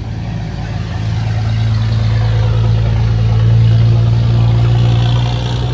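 Loud car engine and exhaust holding a steady, unchanging engine note, swelling in loudness over a few seconds and easing off near the end. The car is not being punched hard; it is running at low revs in a high gear.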